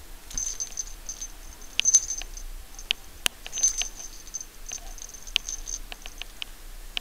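Small jingle bell and metal tag on a cat's collar jingling in short, irregular bursts as the cat moves, with a few sharp clicks among them.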